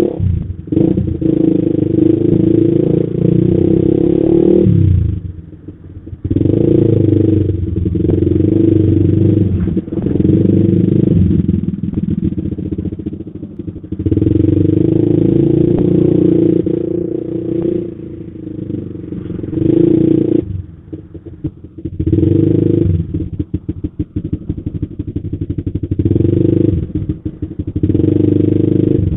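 Honda CBR150R engine running through an aftermarket Creed racing exhaust while creeping in stop-and-go traffic. Its loud rumble swells in stretches of a few seconds and drops back several times as the throttle is opened and closed.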